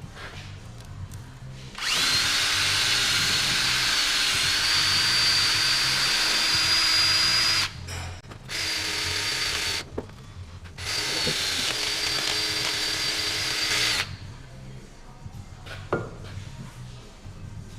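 Handheld power tool, a drill-type motor, running at steady high speed in three runs: a long one about two seconds in, a short one, then another of about three seconds.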